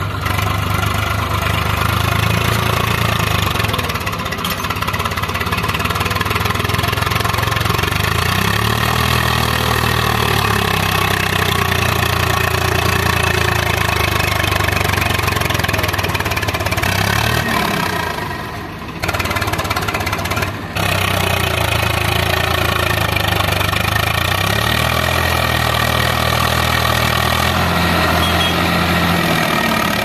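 Swaraj 744 FE tractor's three-cylinder diesel engine running, pulling a loaded trailer through loose dirt, its engine speed rising and falling several times.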